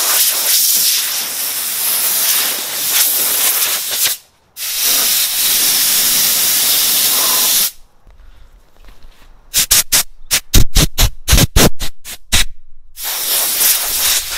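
Sandblasting gun blasting compressed air in a loud, steady hiss, broken once briefly and cutting off suddenly about halfway through. After a short lull comes a rapid run of about a dozen short, loud bursts, about three a second, and then the steady hiss resumes near the end.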